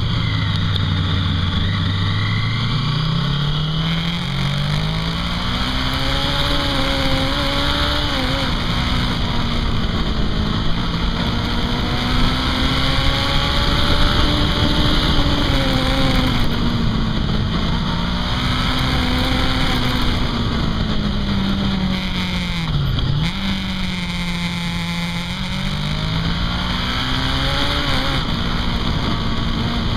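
Honda CB500 motorcycle engine heard from onboard, its pitch rising and falling repeatedly as the rider rolls the throttle on and off through the bends, over a steady rush of wind on the microphone. About three-quarters of the way in the engine note drops sharply and climbs straight back.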